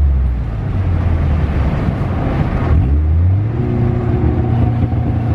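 Car engine running, its note changing about three seconds in and then holding at a higher steady pitch, over road and cabin rumble.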